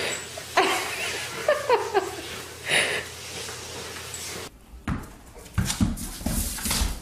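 A dog playing tug-of-war, giving short squealing whines. After a cut about halfway through, there are dull thumps and scuffing as a dog's paws and body slide on a hardwood floor.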